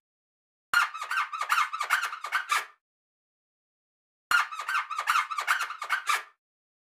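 Tissue rubbed quickly back and forth over the lips, squeaking in short rapid strokes, about four or five a second, in two bouts of about two seconds each, while lip tint is wiped off.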